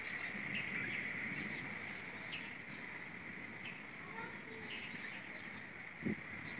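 Birds chirping now and then, short calls scattered through, over a steady high-pitched hum; a couple of low thumps near the end.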